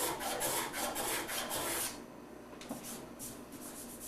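Quick back-and-forth abrasive strokes across a wood panel, from scraping and sanding off the excess dental amalgam packed into the inlay's knife marks. The strokes are steady and rapid for about two seconds, then become quieter and sparser.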